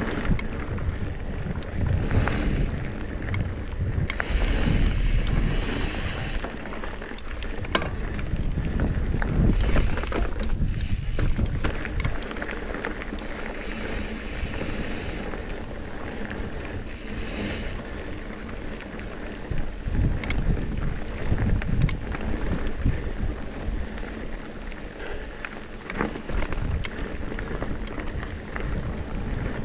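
Trek Top Fuel mountain bike ridden along dirt singletrack: tyres rolling over the trail and wind buffeting the microphone, with frequent sharp clicks and rattles from the bike over rough ground.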